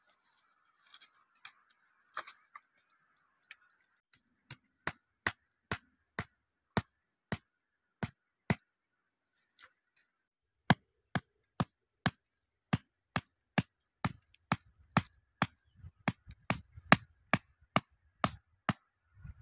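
A blade chopping dry wood in steady strokes, about two a second, with a short pause near the middle. The woodwork is being done by hand on a stick in the forest floor.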